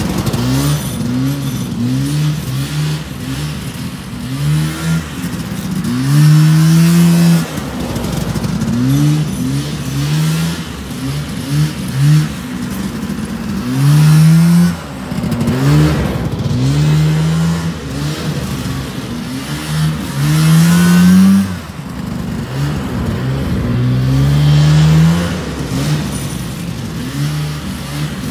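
A 49-year-old John Deere snowmobile's two-stroke engine revving up and easing off over and over as the sled is ridden around in laps, getting louder as it comes close and fading as it pulls away.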